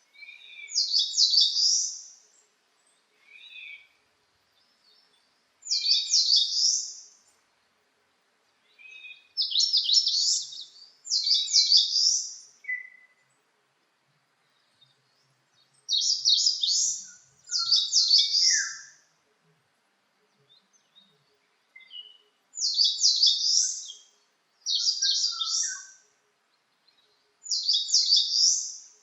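A songbird singing the same short, high phrase of rapid notes nine times, each phrase lasting about a second and a half with pauses of a few seconds between. Fainter, lower calls from other birds come in between the phrases.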